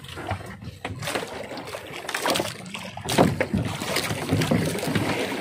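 Gill net being hauled by hand over the side of a small outrigger boat: water splashing and dripping, with irregular knocks and rustles.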